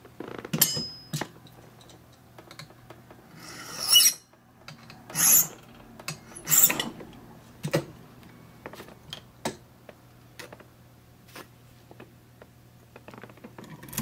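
Three rasping strokes of a file across a brass key blank, about four, five and six and a half seconds in, filing down the impression mark at pin 4 to deepen that cut. Small clicks and taps of the key and handle are scattered throughout, with a cluster of clicks near the end as the key goes back into the padlock's keyway.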